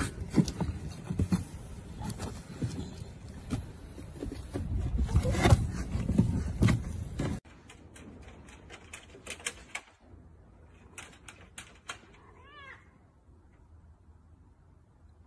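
A cat's short meow, a brief cry about twelve seconds in, after a few light clicks. Before it, for the first half, a louder stretch of rustling noise and knocks that cuts off suddenly.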